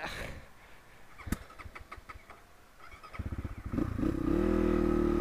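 Crossfire RM250 dirt bike's engine being started: a sharp click and a few smaller clicks, then a second or so of rapid cranking. About four seconds in the engine catches and settles into a steady idle.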